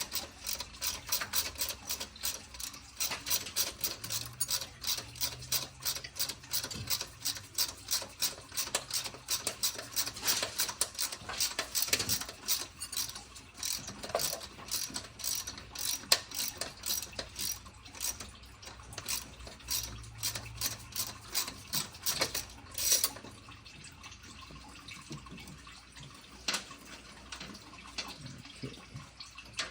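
Hand socket ratchet clicking rapidly in quick strokes as fasteners are worked, with the clicking stopping about three-quarters of the way through and a few scattered knocks after.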